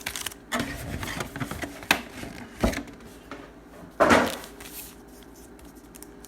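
Trading cards and packaging being handled on a table: a few light knocks and clicks, then a short, louder rustling scrape about four seconds in.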